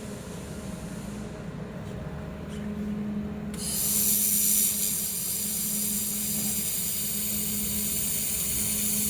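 Air-cooled handheld laser welder running: a steady machine hum, then about three and a half seconds in a steady high hiss with a thin whine sets in and keeps going as the welding gun fires, with shielding gas and the weld hissing at the nozzle.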